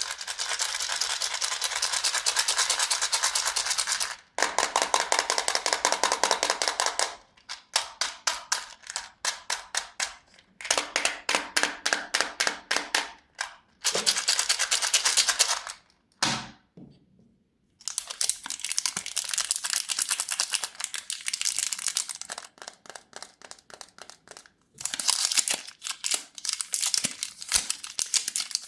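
Plastic candy wrappers crinkling and tearing in long stretches of dense, rapid crackling, broken by short pauses, with one quiet gap of about a second and a half about two-thirds through.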